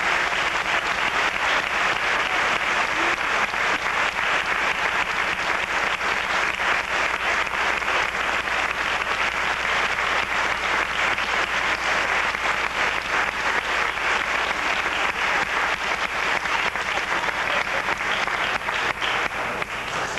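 A large audience applauding steadily: many hands clapping at once, continuous and even throughout.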